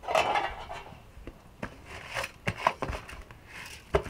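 A brief crinkly rustle, then several short, sharp knocks and clicks of things being handled.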